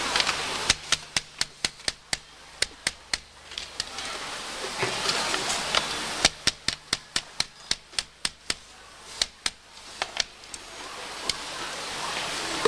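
Sharp taps on small parts of a kettle control being assembled by hand at a bench, about four a second, in two runs of a few seconds each with a pause between and a few single taps near the end.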